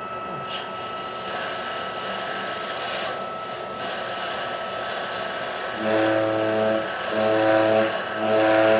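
Metal lathe running with a steady hum and a thin constant whine. About two-thirds of the way through, the cutting tool trimming the muzzle brake face sets up a pitched buzz in four short bursts as it is fed in.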